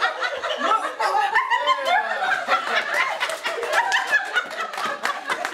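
Several people laughing and chuckling, moments after a pie is smacked into a woman's face.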